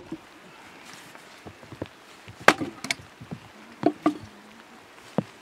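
Firewood being split into thin slats with a short-handled chopping blade. Sharp wooden chops come at uneven intervals, the loudest about halfway through, with lighter taps and knocks between.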